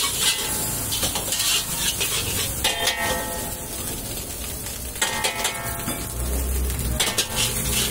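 Metal spatula scraping and clanking against a large black wok as rice is stir-fried over a gas flame, with a frying sizzle underneath; the strokes ease off for a moment in the middle.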